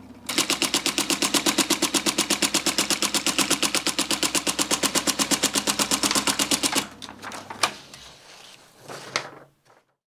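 IBM Correcting Selectric II electric typewriter with its dash key held down so that it repeats: the typeball strikes the paper in a rapid, even run for about six and a half seconds. Then a few separate clicks and a knock follow.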